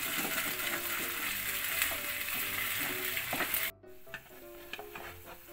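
Canned corned beef sizzling hard in a nonstick frying pan as a spatula stirs and scrapes it, cooking it well through. The sizzle drops suddenly to a much quieter level about four seconds in, with a few scrapes after.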